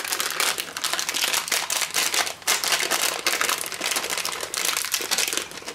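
Crinkly plastic raisin packet being squeezed and kneaded in the hands, crackling continuously as the raisins stick and won't come out, with a brief lull about two and a half seconds in.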